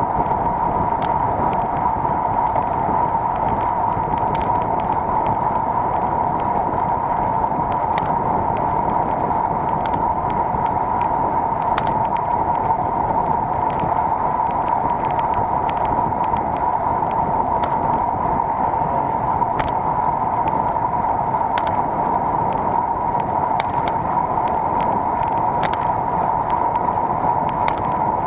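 Steady wind and tyre-on-road noise from riding a road bicycle, picked up by an action camera mounted low on the bike, with faint scattered ticks.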